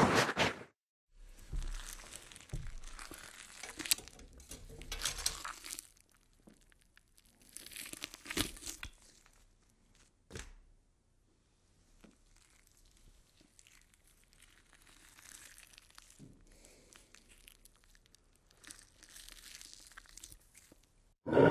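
Quiet, intermittent crinkling and rustling noises in several bursts separated by near-silent gaps, with one sharp click about ten seconds in.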